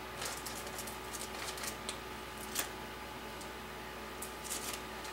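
Faint, scattered light clicks and taps of small objects being handled, over a steady electrical hum.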